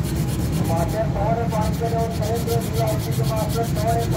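Steady rubbing and rasping of a wooden knife handle being shaped by hand with a file. A wavering pitched sound runs over it throughout.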